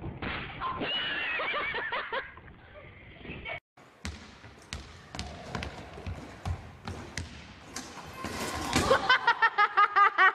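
Voices shouting in a gym, then a run of sharp thuds and slaps of feet and bodies landing on mats and a mini trampoline in a hall. Near the end comes loud, hard laughter in quick repeated bursts, about four a second, which is the loudest sound.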